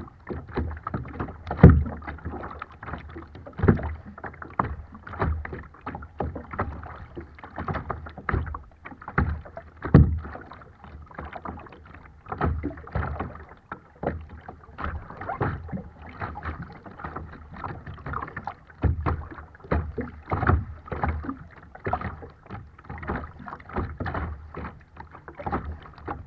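Choppy waves slapping and splashing against a kayak's hull, close to the water line, with irregular louder thumps as bigger waves hit.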